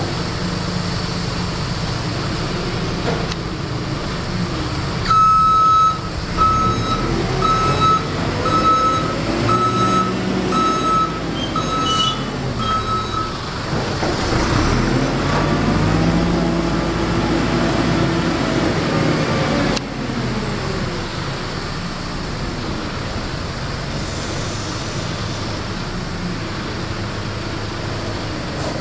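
JCB Loadall telehandler's diesel engine running, with its reversing alarm beeping about once a second for some eight seconds. The engine then revs up for several seconds as the boom lifts a round bale with the bale-stacker attachment.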